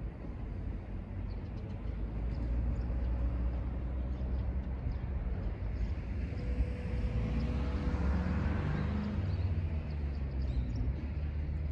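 Freight train's container wagons rumbling slowly across a steel girder railway bridge as the train gets moving again after stopping dead on it. A low steady rumble that swells after a couple of seconds, with a faint steady tone joining about six seconds in.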